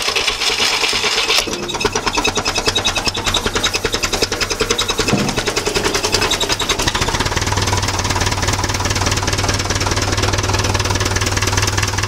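Farm tractor engine running with a rapid, even beat of firing strokes as the tractor drives along; its note changes about five seconds in.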